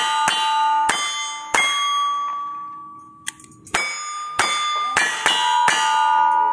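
Handgun shots fired at steel targets, each shot followed by the ring of a hit steel plate. A quick string of shots comes in the first second and a half, then a pause of about two seconds, then a second quick string of about five shots.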